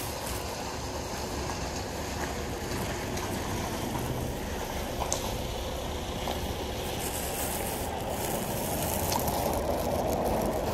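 Riding on a motorcycle: steady rush of wind and road noise with the engine running underneath, growing a little louder near the end.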